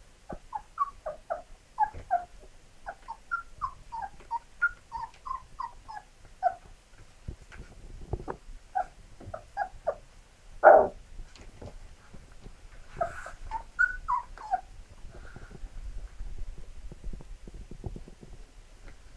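Young Labrador puppy whimpering in short, high squeaks that come in quick runs, with one louder, longer cry about eleven seconds in.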